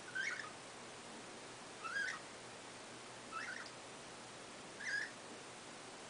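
Budgerigar giving four short chirps, about one every second and a half, each a quick squeaky call that bends upward in pitch.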